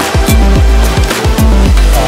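Electronic background music with deep bass notes and a steady, driving kick-drum beat.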